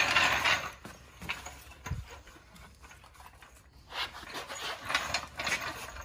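Steel floor jack being handled on a concrete floor: a short ratcheting rattle at the start, then scattered clicks and knocks.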